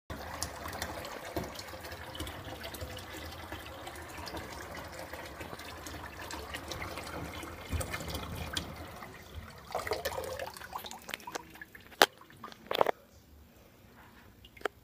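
Water from a kitchen tap running into a stainless steel sink, a steady splashing that stops about ten seconds in. Two sharp knocks follow, then faint drips.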